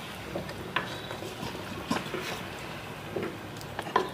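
A steel ladle stirs thin curry in a terracotta clay pot: the liquid sloshes, and the ladle clinks sharply against the pot about three times, loudest near the end.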